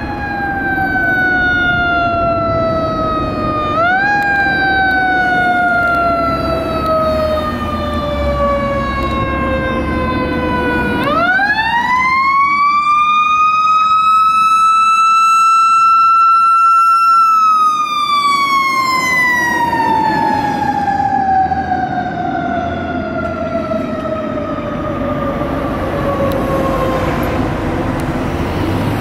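Fire engine siren winding down, briefly rising about four seconds in, then winding up quickly to a high steady wail that it holds for several seconds before winding slowly down again near the end. Steady engine and road-traffic rumble runs beneath it.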